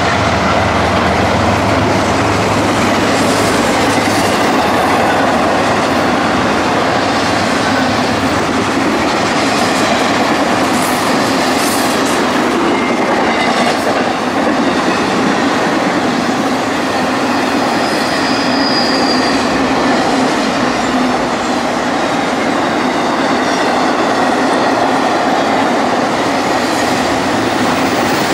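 Double-stack intermodal freight cars rolling past close by: a steady, loud noise of steel wheels on rail with rattling cars, and a brief faint high-pitched wheel squeal about two-thirds of the way through.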